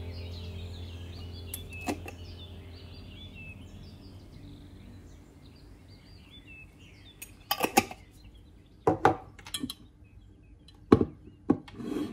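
A quiet background track with bird-like chirps fades out over the first half. Then come a handful of sharp clinks and knocks, in small clusters and then singly toward the end, as a glass jar and a ceramic plate are handled on a tabletop.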